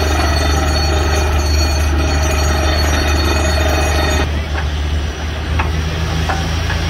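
DTH borewell drilling rig's engine and air compressor running steadily under load, a heavy low drone with a layered mechanical whine above it. About four seconds in the sound changes abruptly: the higher whine drops away, the low drone carries on, and scattered short clicks and knocks come through.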